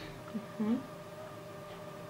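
A short vocal sound from a woman, rising in pitch, about half a second in, over a steady faint hum of a few even tones.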